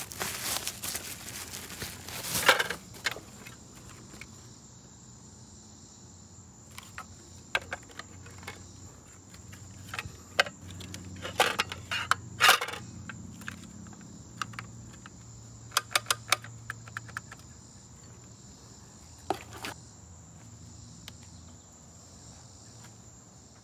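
Bubble-wrap packaging crinkling as a tool is unwrapped, then scattered sharp clicks and knocks of plastic and metal as a DeWALT cordless circular saw is handled, with a quick run of clicks in the middle. A steady high chirring of insects runs underneath.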